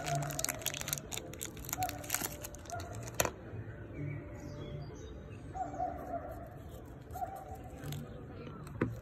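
Thin plastic wrapper crinkling and crackling as it is peeled off a small metal pin, ending with a sharp click about three seconds in. After that only faint background sounds, with one more click near the end.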